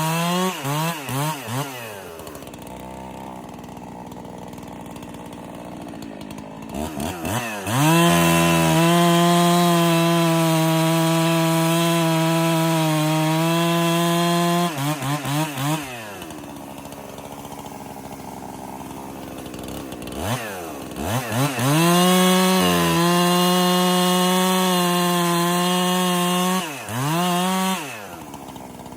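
Freshly rebuilt Husqvarna 371 two-stroke chainsaw being throttled up and down. It drops to idle, is held twice for several seconds at steady full revs, and falls back to idle after each run, with a quick blip of the throttle near the end.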